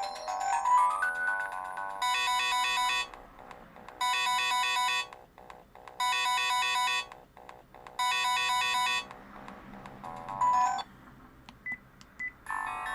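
Built-in ringtones and alert tones of a Sharp-made Vodafone V601SH mobile phone, played through its small speaker: a short rising run of notes, then a one-second chiming ring pattern repeated four times, two seconds apart. A short beep and a few faint blips follow, and a new melody starts near the end.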